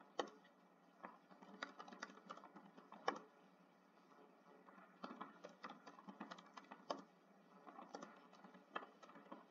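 Faint typing on a computer keyboard: irregular keystrokes in short runs, with a pause of about a second and a half around the middle.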